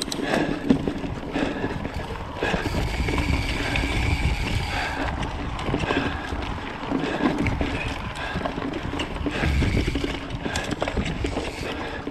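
Mountain bike riding over a dirt forest singletrack strewn with stones and roots: steady tyre and rolling noise with a low rumble that swells twice, broken by short knocks and rattles as the wheels hit stones.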